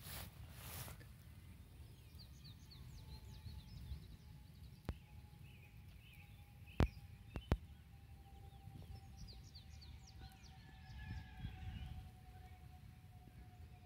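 Outdoor ambience: scattered short bird chirps, a low rumble, and a faint steady tone that slowly falls in pitch. A few sharp clicks about five and seven seconds in are the loudest sounds.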